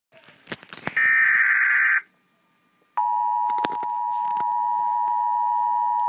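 Emergency Alert System tones announcing a National Weather Service flash flood warning: a few clicks, then a one-second screech of SAME digital header data, a second's pause, and from about three seconds in the steady two-tone EAS attention signal, with a couple of clicks over it.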